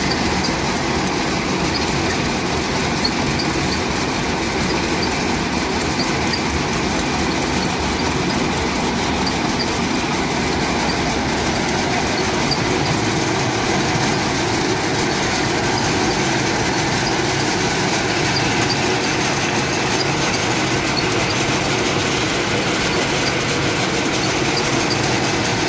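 Belt-driven peanut sheller (groundnut decorticator) running steadily, powered by a stationary flywheel engine, with the rattle of shelled peanuts pouring down the chutes onto a shaking mesh sieve.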